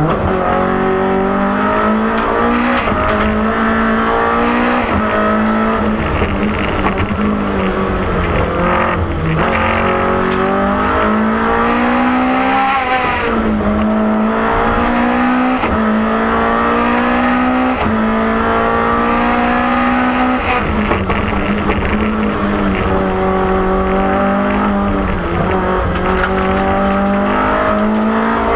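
BMW M3 E30 Group A rally car's four-cylinder engine heard from inside the cabin, driven hard: the engine note climbs under full throttle and drops sharply at each gear change, over and over through the stage.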